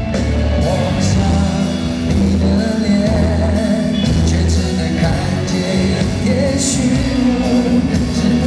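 A live rock band playing a ballad through an arena sound system: drums, bass, electric guitars and keyboards, with singing over the band.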